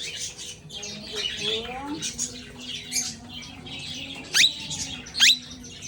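Plum-headed parakeet chattering, with two loud, shrill rising squawks about a second apart near the end.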